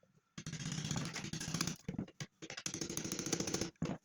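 A small motor running with a buzz in two bursts of about a second and a half each, the second starting about a second after the first stops.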